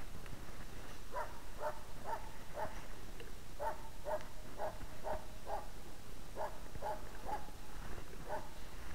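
Hunting dog barking over and over, about two barks a second in short runs with brief pauses between them. This is the steady bay-barking of a dog holding game in one place.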